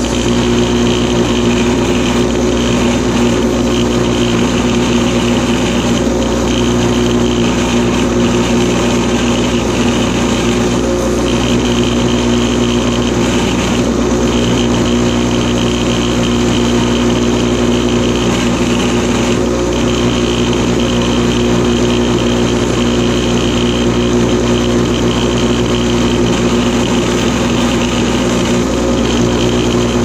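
Electric bench grinder running with a steady hum while small pieces of antler are held against its stone wheel and ground down.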